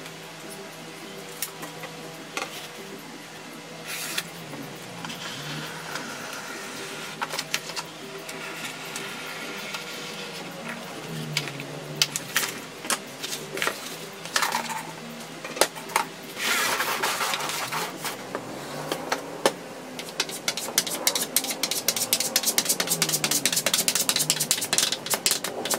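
Hand work on a thin PVC sheet: scattered clicks and rustles of a tape measure, a pencil and a utility knife drawn along an aluminium straightedge, with the sheet flexing and rustling. Near the end comes a fast, even scraping as glue is spread across plywood. Soft background music runs underneath.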